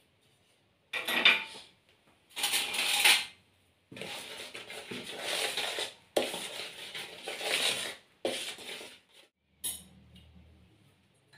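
A spoon stirring and scraping a dry mix of flour, sugar and salt in a plastic basin, in several spells with short pauses between them, the longest near the middle.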